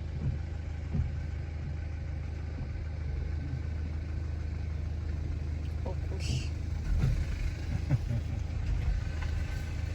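A car engine running with a steady low rumble, with a few knocks and a short hiss about six seconds in.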